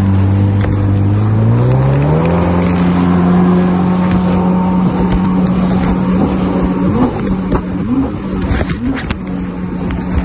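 Jet ski engine accelerating under the rider, its pitch climbing over the first two seconds and then holding at cruising speed. From about seven seconds in the pitch wavers up and down a few times as the craft runs over the chop. Rushing water and spray hiss underneath.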